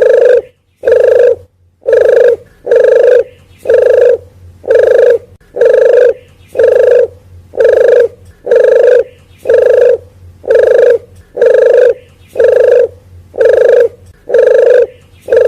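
Recorded lure call of the puter geni (wild dove): a single low cooing note repeated at an even pace about once a second, played loudly for attracting the birds.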